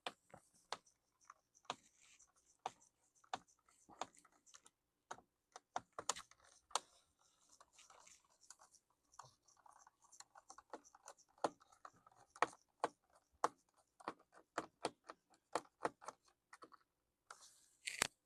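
Faint, irregular small clicks and light scraping from a Lenovo T430 laptop's parts being handled while its SSD is taken out, with a short scratchy rustle near the end.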